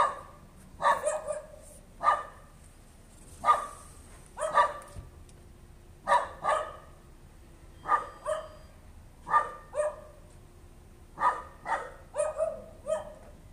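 A dog barking persistently, single barks and quick pairs or triples about every second: nuisance barking.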